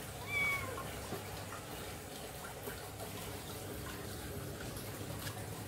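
Aquarium filter running, a steady trickle of water over a faint low hum. A short high squeak about half a second in.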